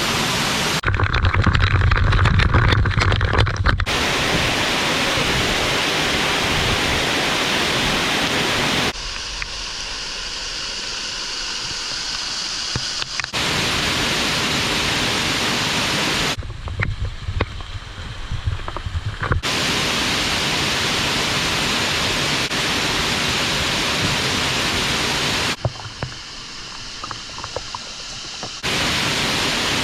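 Steady rush of a waterfall, cut abruptly every few seconds between louder and quieter stretches, some of them with a low rumble underneath.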